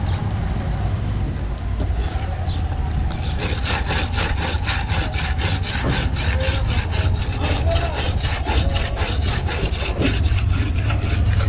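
A long curved fish knife being sharpened on a sharpening block: rapid back-and-forth rasping strokes, about four a second, starting about three seconds in, over a steady low rumble.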